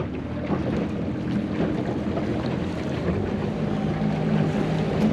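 Inflatable coach boat's outboard motor running under way, with water rushing past the hull and wind on the microphone; the motor's low hum grows clearer about three seconds in.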